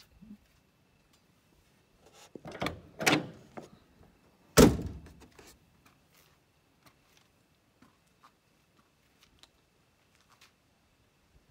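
Land Rover Series II bonnet, with the spare wheel mounted on it, being lowered and shut: a couple of seconds of clattering and knocking, then one loud slam a little before halfway.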